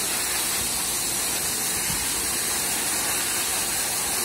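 Grain pouring steadily from a loading pipe into woven sacks: a continuous rushing hiss.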